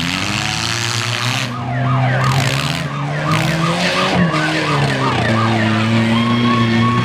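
Demolition derby cars' four-cylinder engines running and revving. Over them, from about a second and a half in, comes a fast, repeating falling wail, about three times a second, like a siren yelp. Near the end this gives way to a steady high tone.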